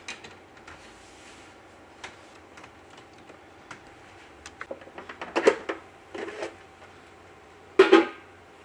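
Hands fitting clear vinyl drain tubing and a stainless hose clamp onto plastic fittings: scattered light clicks and knocks, a busier run of them a few seconds in, and one louder short clatter near the end.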